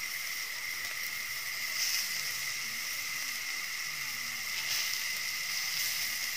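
Beef sizzling on a round grill plate over a portable gas stove, against a steady high-pitched whine of night insects and a soft hiss.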